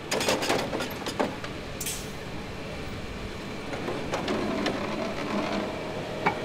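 FBR Hadrian X bricklaying robot at work: its machinery runs with a steady mechanical noise, broken by scattered sharp clicks and clanks.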